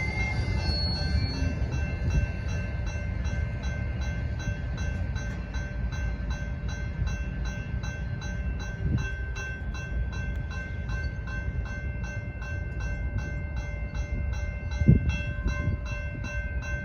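Freight train rolling past with a steady low rumble, faint steady squealing tones from the wheels and a regular clicking. A single thump near the end.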